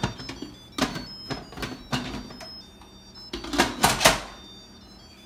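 Clicks and knocks of an Instant Pot's lid being twisted and locked and its steam valve set to seal, about three times, loudest in a cluster near the end, with short high beeps from the control panel.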